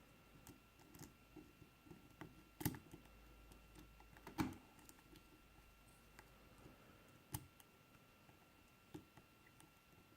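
Faint, scattered clicks and taps of a lock pick and tension wrench working the pins inside a Kwikset lock cylinder. Sharper clicks come about two and a half, four and a half, seven and a half and nine seconds in.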